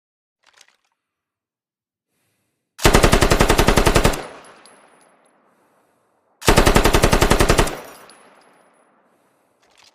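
QJY-88 5.8 mm general-purpose machine gun firing two bursts of fully automatic fire, each about a second and a half long, with a fading echo after each. Faint clicks come before the first burst and near the end.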